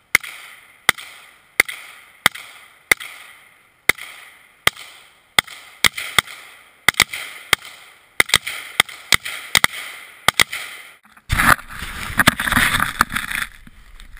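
Gunshots fired at a flat-screen TV target, each with a trailing echo. They come about one every three-quarters of a second at first, then quicker and more irregular. Near the end, a couple of seconds of loud rustling and rumble from the camera being handled.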